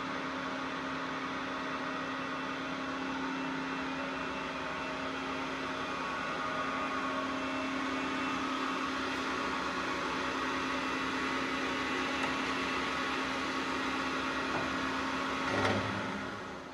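FLOTT SB 15 pillar drill running with no load: a steady whirring hum from its electric motor and spindle, with a strong low tone. It dies away near the end.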